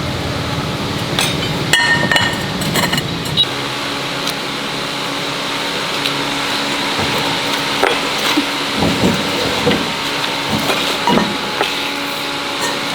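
Metal parts and tools clinking and knocking, a cluster of ringing metallic clinks in the first few seconds, then scattered duller knocks, over a steady hum.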